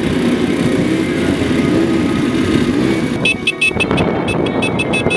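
Quad bike engines running with a wavering pitch, mixed with background music whose crisp regular beat comes in about three seconds in.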